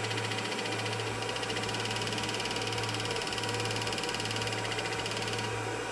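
Voron 2.4 3D printer's fans and motors running during filament loading at the toolhead: a steady low hum with a hiss over it.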